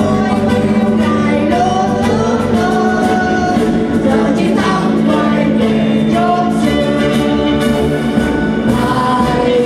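Mixed choir of men and women singing a Vietnamese song together, holding long sustained notes.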